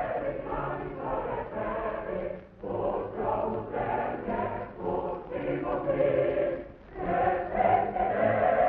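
A choir singing in sustained phrases, with short breaks about two and a half seconds and seven seconds in. It has the dull, narrow sound of an old film soundtrack.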